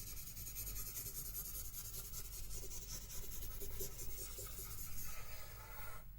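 Pencil writing on paper: continuous scratching of the graphite point in quick strokes, stopping abruptly at the very end.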